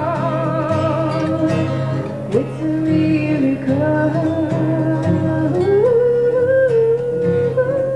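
Live folk music: a woman's voice sings a wordless melody with vibrato over strummed acoustic guitar. About five and a half seconds in, the voice slides up to a higher held note.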